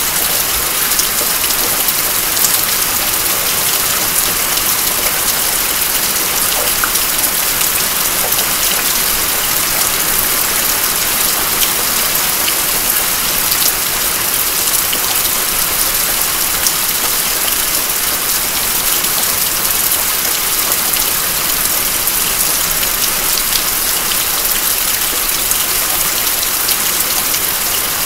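Steady rain falling: an even, constant hiss with scattered sharper ticks of single drops striking.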